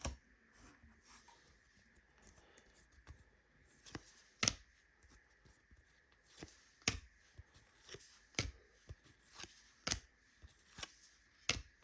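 Trading cards being handled and flipped through one at a time: soft rustling with a sharp tick every second or two as each card is moved.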